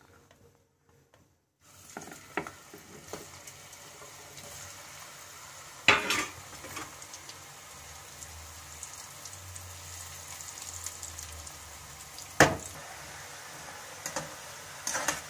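Potato-dough snacks deep-frying in hot oil in a kadhai: a steady sizzle that starts about two seconds in, as the raw pieces go into the oil. A slotted metal spatula knocks sharply against the pan a few times, loudest about six and twelve seconds in.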